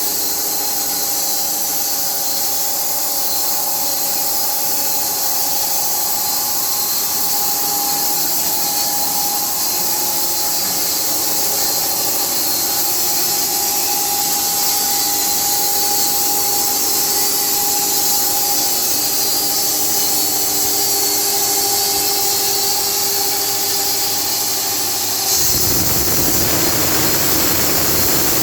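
Carpathian SMFA 1000 horizontal band sawmill running steadily, its band blade working through a log, with a bright hiss and a steady hum. About 25 seconds in, a louder, lower noise joins in.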